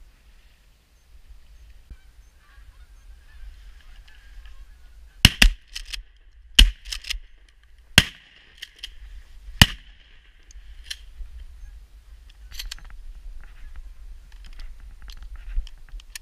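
A flock of geese honking, growing louder after a few seconds, with five loud sharp cracks between about five and ten seconds in.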